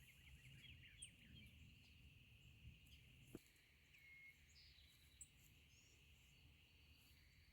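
Near silence: faint outdoor ambience with a steady high hiss and a few faint bird chirps, and one small click a little past the middle.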